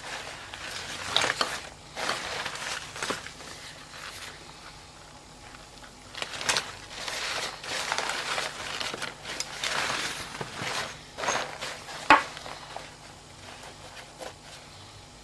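Thin fabric of a foldable backpack rustling and crinkling in irregular bursts as it is handled and its straps are moved, with a few sharp clicks, the loudest about twelve seconds in.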